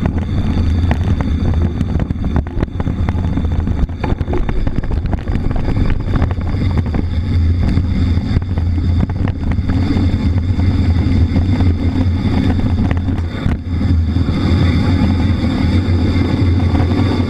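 Ride noise from a mountain bike on a rough trail: wind on the camera microphone and rolling noise, with many small knocks from bumps.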